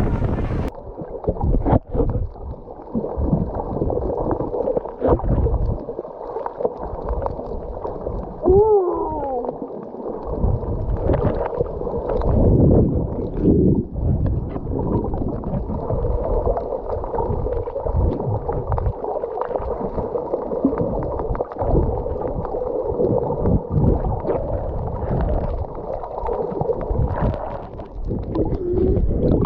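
Muffled underwater sound from a submerged action camera: water gurgling and sloshing, with a brief wavering, moaning tone about nine seconds in.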